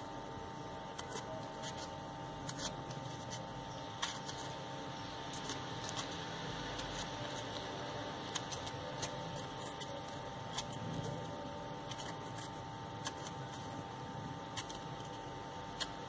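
Crepe paper being crimped between the fingers: faint rustling and crinkling with scattered small clicks, over a steady faint hum.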